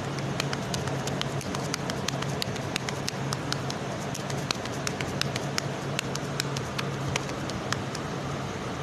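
Wet hands patting and pressing a soft minced-meat kabab mixture into a patty, a string of quick, irregular soft slaps and clicks, a few a second, over a steady low hum.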